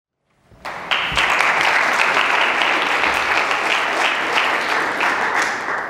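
Audience applause that starts about half a second in, quickly reaches full strength and holds steady, then begins to die away near the end.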